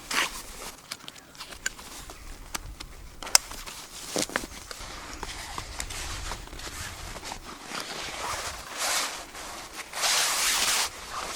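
Handling noises: irregular rustling and scuffing with scattered sharp clicks and knocks, a sharper knock about three seconds in, and two longer rustling swishes near the end.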